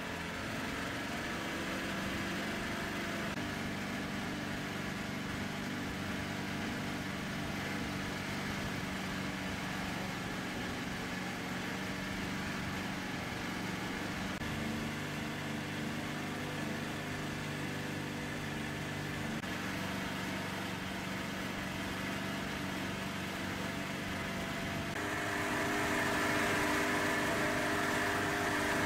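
Small boat's engine running steadily, heard from on board. Its pitch shifts a few times, and it gets louder near the end.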